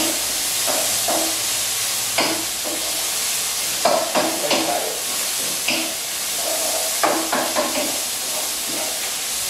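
Vegetable stir-fry sizzling and steaming in a wok after a splash of water and lime juice, with a utensil scraping and clattering against the pan now and then.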